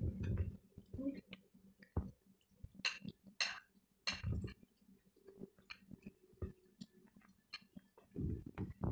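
Cutlery and dishes clinking at a meal table: scattered light clicks and clinks, with a few short, louder scrapes a few seconds in.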